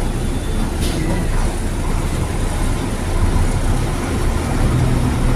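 Intercity coach's diesel engine running with a steady low rumble as the bus drives slowly away, swelling a little about three seconds in. A brief sharp click about a second in.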